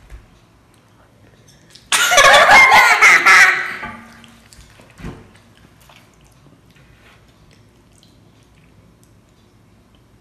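A loud, wordless outburst of a child's voice lasting about two seconds, starting about two seconds in, followed by a faint knock about a second later.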